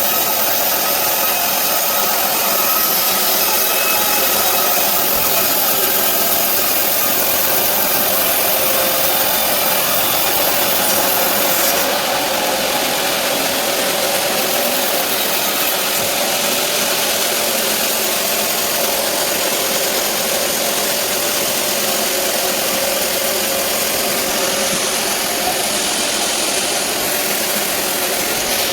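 Log band sawmill running steadily, a constant loud machine noise with a steady whine.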